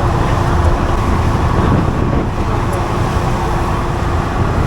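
An engine running steadily: a loud, even drone with a constant hum.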